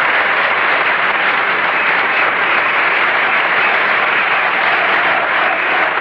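Crowd applauding steadily, a dense even clapping that holds at the same level throughout.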